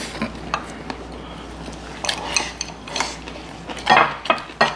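Chopsticks clicking and scraping against plates and bowls as two people eat a meal, in scattered short clinks, with a louder cluster about four seconds in.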